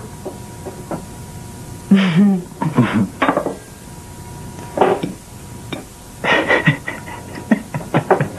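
Cutlery and a plate clicking and clinking as someone eats at a table, a series of short, light strikes, with a brief sound from a voice about two seconds in.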